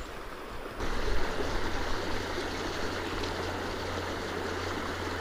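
Steady rush of river water running over a rocky riffle, starting about a second in, with a low steady hum underneath.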